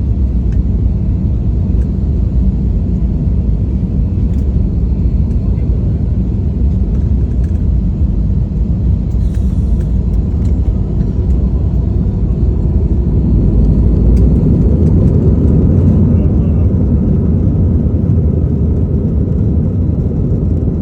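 Steady low rumble of an airliner's engines and airflow, swelling louder about two-thirds of the way through.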